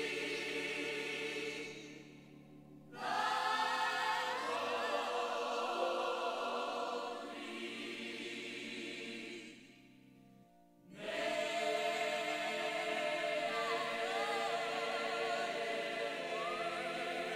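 Choral music: a choir singing slow, held chords over a low sustained note, dropping away briefly twice, about two seconds in and again around ten seconds in.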